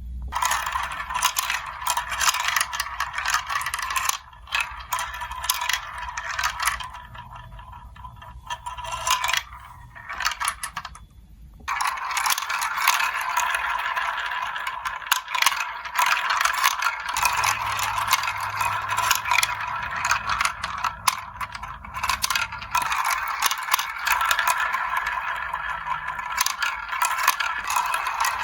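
Marbles rolling and clattering through a plastic building-block marble run, a continuous rolling rattle dotted with small clicks. It goes softer for a few seconds about a third of the way in, then picks up and runs fuller again.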